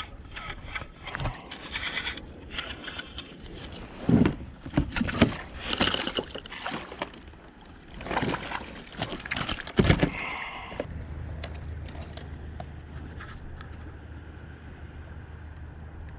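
Knocks, scrapes and splashes of a chicken grunt (isaki) being reeled in, netted and brought aboard a kayak, loudest around four to six seconds in and again near ten seconds. After about eleven seconds only a steady low rumble and a few light clicks remain.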